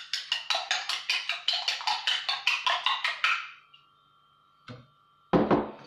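Egg being beaten by hand in a ceramic bowl, the utensil clicking rapidly and evenly against the bowl at about six strokes a second, stopping after about three and a half seconds. A short knock follows near the end.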